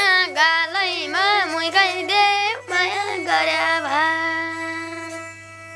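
A boy singing a Nepali folk song, his voice moving through the melody, then holding one long note from about three seconds in that slowly fades.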